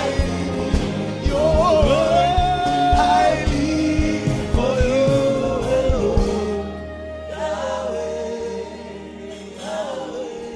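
Gospel worship song: singing voices with a choir over a band with bass and drums. About six seconds in the drums drop out and the music grows quieter, leaving the voices over held chords.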